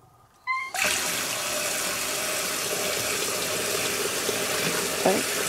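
Single-lever kitchen mixer tap turned on about a second in, then water running steadily from the tap into the sink.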